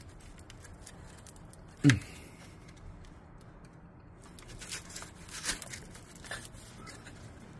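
Fingers working the plastic wiring connector off an ABS module: scattered plastic clicks and rustling, with one short loud sound about two seconds in and a cluster of sharper clicks near the end.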